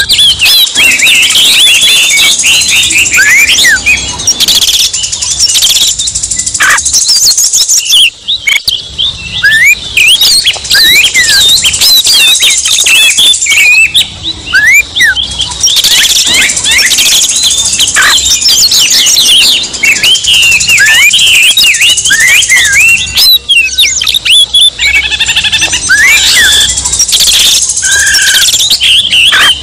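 Oriental magpie-robins (kacer) singing in a loud, dense, unbroken stream of fast chirps, sweeping whistles and rattles, several voices overlapping. This is agitated, territorial song ('emosi') of the kind used to provoke a captive magpie-robin into singing.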